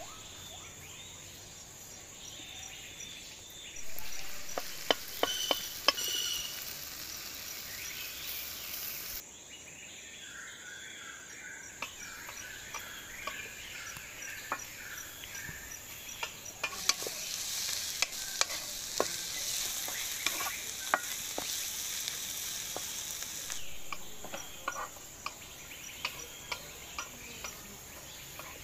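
Food sizzling in hot oil in an iron kadai while a spatula stirs it, with frequent sharp clicks and scrapes of the spatula against the pan.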